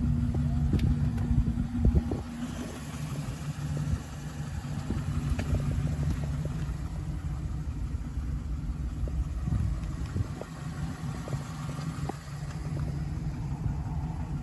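2013 GMC Sierra 1500 pickup's engine idling steadily, with scattered small knocks and rustle from handling.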